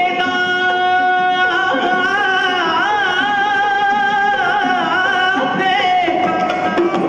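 Dhadi jatha performance: singing in long, held notes that waver in pitch, over instrumental accompaniment.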